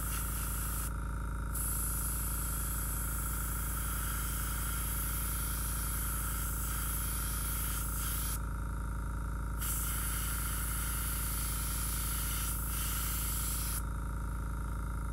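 Airbrush spraying paint in a steady high hiss, released in several passes: it stops briefly about a second in, again past the middle, and near the end. A steady low hum runs underneath.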